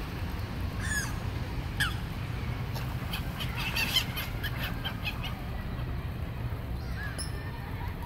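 Gulls calling: a few short harsh calls, with a busier flurry of calls in the middle as they swoop down to the water. A steady low rumble runs underneath.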